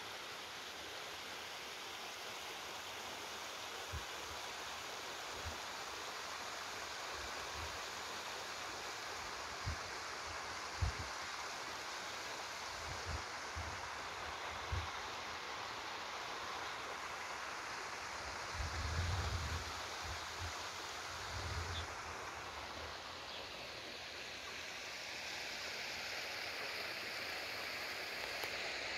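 Steady rush of running stream water, with occasional short low thumps and a denser cluster of them about two-thirds of the way through.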